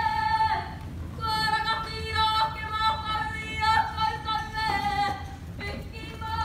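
Female voices of a kapa haka group singing long, high held notes, with short breaks about a second in and again near the end.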